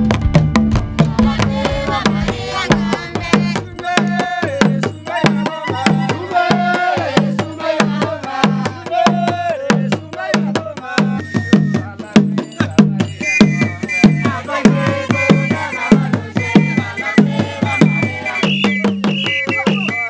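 Music with a steady drum beat and singing voices.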